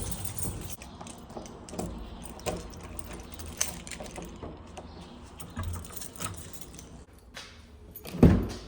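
Scattered light clicks and rattles over a low rumble, with one loud thump near the end.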